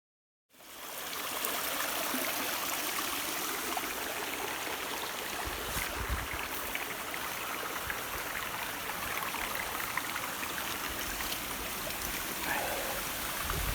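Water of a small bush waterfall and creek flowing and splashing steadily, fading in just after the start, with a few brief low rumbles about halfway and near the end.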